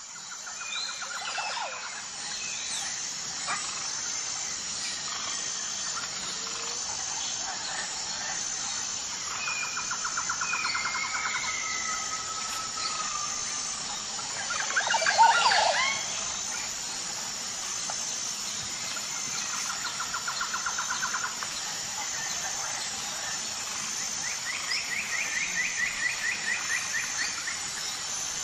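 Natural ambience of several birds calling, with repeated rapid trills and short whistled glides over a steady, high, pulsing whine. A louder call comes about halfway through.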